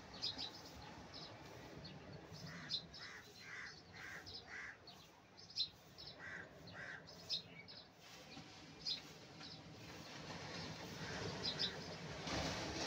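Birds chirping with many short high calls, and a run of repeated lower calls a few seconds in, over a steady low wash of surf. A wave breaks near the end.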